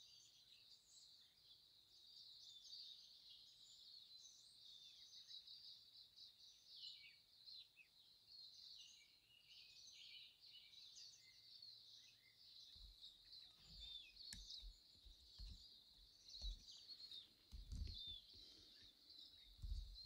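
Faint chorus of small songbirds, many short chirps and trills overlapping without a break. In the second half a few low thuds come in.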